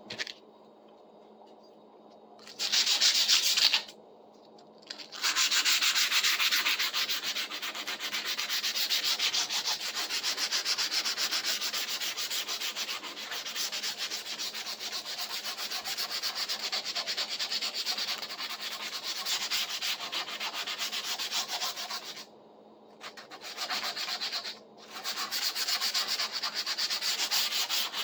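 Abrasive sanding on the rusty steel blade of a pruning saw, a dense scratchy rubbing that works in long spells. It stops briefly about four seconds in and again near the end before starting up again.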